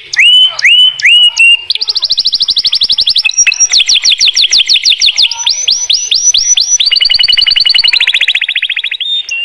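White domestic canary singing a loud, continuous song. It opens with a few separate rising chirps, then runs of fast repeated notes: first an even trill, then quick falling notes, then another trill. The pace changes every second or two.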